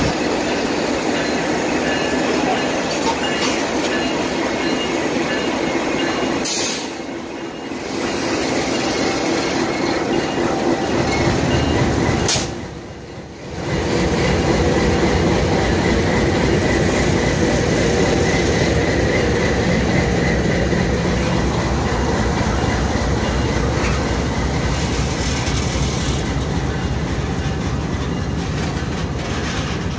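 CN freight train rolling past, its diesel locomotives running and steel wheels squealing thinly and clacking over the rails. The sound is loud and steady, except for two short dips in loudness about 7 and 13 seconds in.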